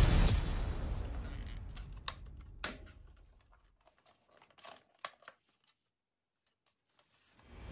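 Background music fades out, then a few sharp plastic clicks as the toy blaster is handled and its hinged wing panels are snapped open by hand. Music starts again near the end.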